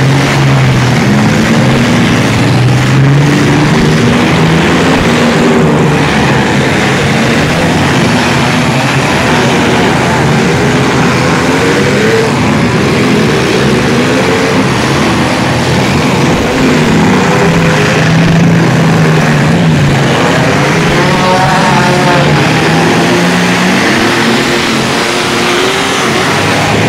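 Several compact-car engines revving hard and continuously in a demolition derby, their pitch climbing and falling again and again as the cars accelerate, reverse and ram one another. The sound stays loud throughout.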